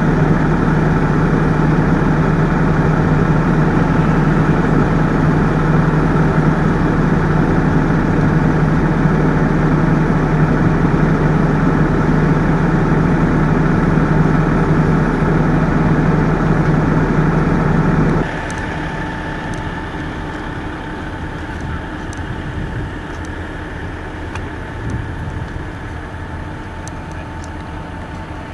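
Emergency vehicle's engine idling steadily close by, a loud, even, low hum. About two-thirds of the way through it drops suddenly to a quieter, more distant steady engine hum.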